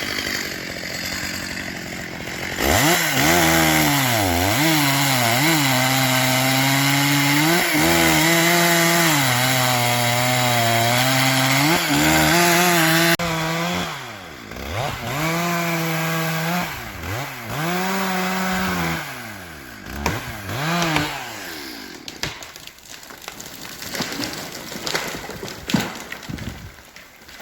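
An engine running hard under load, its pitch repeatedly sagging and climbing back as it labours, then easing off and dying down over the last few seconds.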